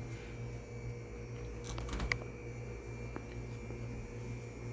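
Vintage RCA Whirlpool ELH-16S chest freezer running with a steady low hum, with a few faint clicks about two seconds in.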